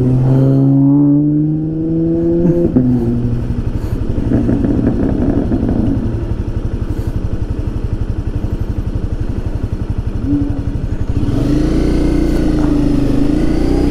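Honda CBR300 single-cylinder motorcycle engine: the revs climb for a couple of seconds and drop, then it idles with a steady pulsing rumble while stopped. Near the end the revs rise again as it pulls away, with wind hiss on the helmet camera.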